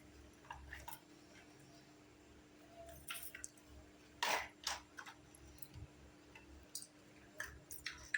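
Small plastic pieces of a mini toy kitchen set being handled, giving scattered light clicks and taps, over a faint steady hum.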